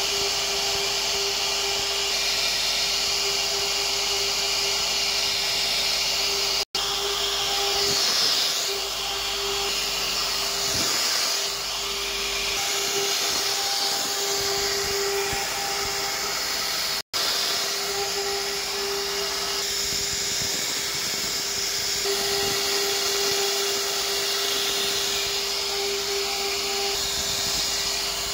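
CNC router spindle running steadily with a router bit carving into a wood board: a constant high whine over a dense cutting hiss, with two very brief gaps.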